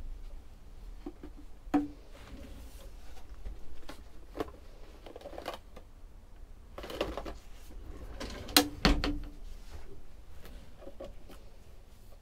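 Kitchen drawers being slid open and shut and plastic plates handled inside them: scattered knocks, clatters and rustling, with the loudest knock about eight and a half seconds in.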